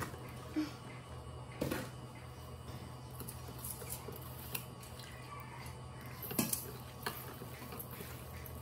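A stainless steel bowl and seasoning bottles being handled: a few scattered light knocks and clinks, the loudest about a second and a half and six and a half seconds in, over a steady low hum.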